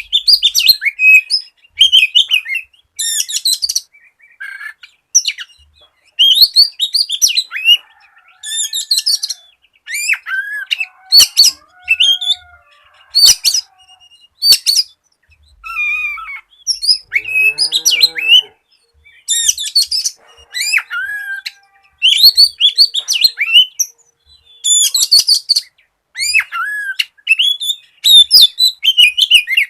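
Oriental magpie-robin (kacer) singing energetically: quick, varied high whistles, chirps and trills in short phrases, with brief pauses between them. About two-thirds of the way through comes one lower call with a rich, layered tone.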